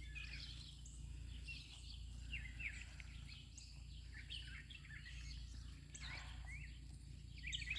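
Small birds chirping, with quick runs of short high notes repeated several times, over a faint steady low rumble.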